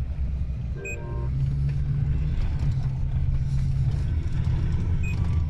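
Nissan Navara D40 pickup driving, heard from inside the cabin: a steady low drone of engine and road noise. A short electronic beep-like tone sounds about a second in, and a fainter one near the end.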